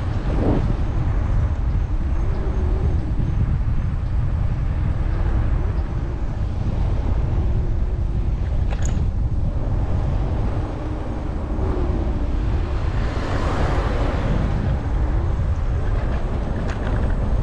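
Wind rumbling on an action camera's microphone while riding a Segway Ninebot Max electric scooter, with the steady noise of the scooter rolling over the asphalt. The hiss swells for a second or two about thirteen seconds in.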